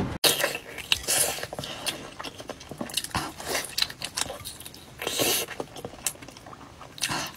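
Close-miked eating sounds: biting, tearing and wet chewing of a large sauce-coated sausage, with louder bites about every two seconds.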